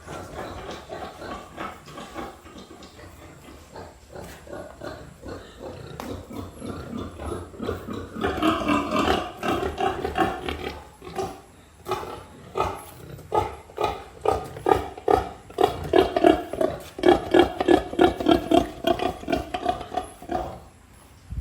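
Pigs grunting in short repeated calls, getting louder about eight seconds in and coming quickly and steadily through the second half, then stopping shortly before the end.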